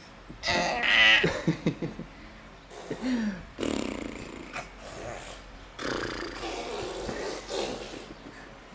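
A toddler making funny vocal noises: a short pitched squeal, a quick sputtering run of pops, a low falling grunt about three seconds in, then a string of breathy huffs.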